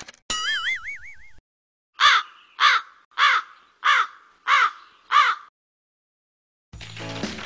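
Crow cawing six times at an even pace, a cartoon-style sound effect for an awkward pause. Before the caws comes a short wavering, wobbling tone, and music starts near the end.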